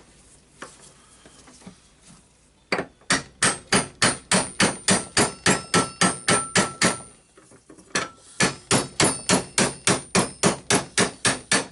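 Hammer blows on metal in two quick runs, about four strikes a second with a short pause near the middle, each blow leaving a faint ring. This is hammering to drive a stuck ball bearing out of an orbital sander's armature assembly.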